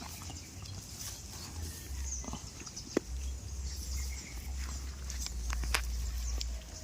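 Goats in a pen: scattered sharp clicks and knocks over a low rumble, with no clear bleat.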